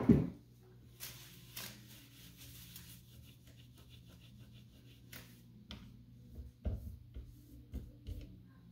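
A cloth rubbing over a glass-ceramic cooktop and its stainless steel control strip, with a thump at the start and several light knocks in the second half as the hand works around the knobs. A steady low hum runs underneath.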